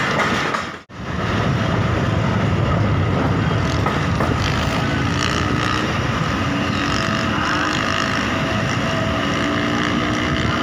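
Moving train heard from an open carriage window: a steady rumble with wind noise. The sound drops out briefly about a second in.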